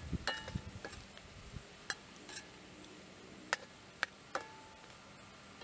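Wooden stirring stick tapping and scraping against a metal pan of moringa pods over a wood fire: scattered light clicks, some with a short metallic ring.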